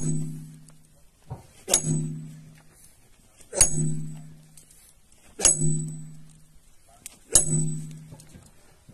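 Sledgehammer striking a row of steel plug-and-feather wedges driven into drilled holes in a boulder, to split the rock. Five sharp metallic blows about two seconds apart, each with a high ping and a low ring that dies away within about a second.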